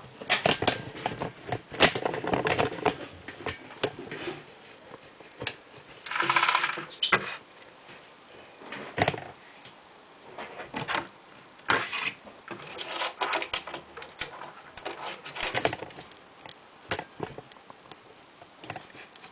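Irregular clicks and taps from handling, in uneven clusters, with a longer rustling stretch about six seconds in.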